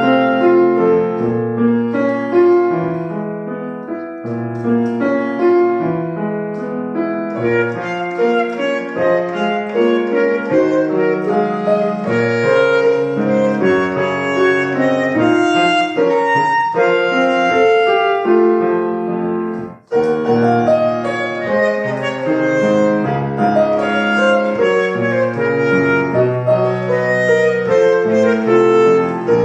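A melody instrument plays over piano accompaniment. The music breaks off for a moment about twenty seconds in, then goes on.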